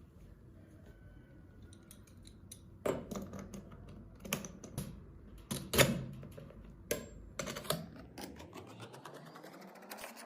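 Scattered clicks and knocks of a bait-tray rack being handled and fitted onto a fishing seat box's accessory mount, the loudest knock about six seconds in.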